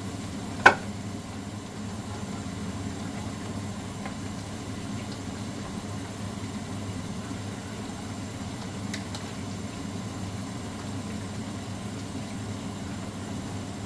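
Steady low machine hum with faint handling noises; under a second in, one sharp ringing clink as wooden chopsticks knock against a porcelain bowl of batter.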